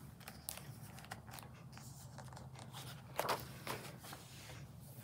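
A picture book's page being turned by hand: faint paper rustling and handling, with two louder crinkles about three seconds in.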